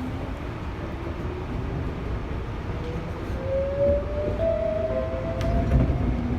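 Tobu 8000 series electric train running, heard on board: its traction motors whine in a tone that climbs steadily in pitch as the train accelerates, over a steady rumble of wheels on rail.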